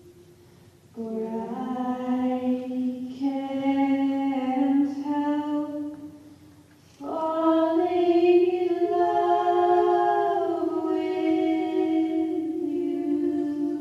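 Unaccompanied singing in a slow ballad style: long, held notes in two phrases, the first starting about a second in and the second about seven seconds in.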